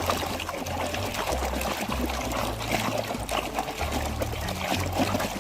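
Water pouring and splashing over a muddy toy as it is washed, over background music with a repeating bass line.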